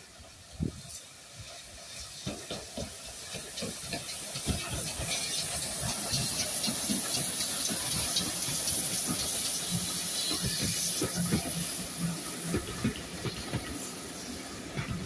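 Two GWR 0-6-0 tank engines, saddle tank 813 and pannier tank 7714, running past close by at the head of a train, with a steady hiss of steam and many short knocks. The sound builds to its loudest through the middle as the engines pass, then eases as the coaches roll by.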